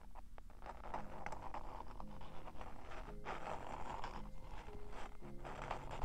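Fingertips scratching and rubbing on the covered ears of a binaural microphone, close up: a continuous rustling scrape with small crackles. Faint background music plays underneath.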